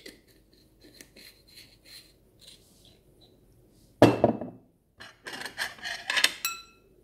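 Faint ticking as a bottle of chili vinegar is shaken over the food, then a knock about four seconds in and a run of ceramic dish and cutlery clinks with short ringing notes as the plates and bowl are handled.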